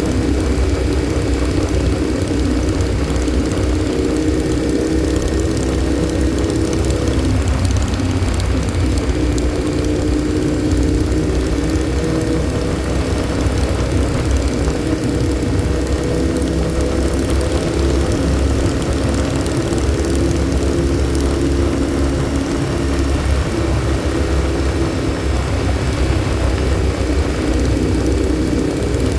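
Motorcycle engine running steadily at cruising speed, its drone wavering briefly in pitch about seven or eight seconds in, under a low rumble of wind on the microphone.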